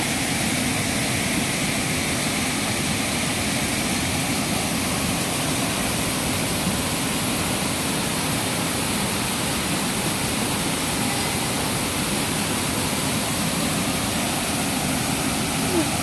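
Waterfall and rushing river water making a steady, unbroken noise.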